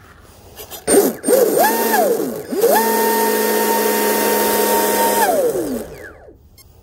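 Pro Boat UL-19's Oxidean Marine 4082 brushless motor spun up with the boat out of the water: a short throttle blip, then an electric whine held at one steady pitch for about two and a half seconds before it winds down. A click comes about a second in.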